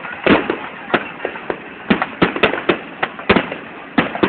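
Fireworks going off: a rapid, irregular string of sharp bangs and crackles, several a second.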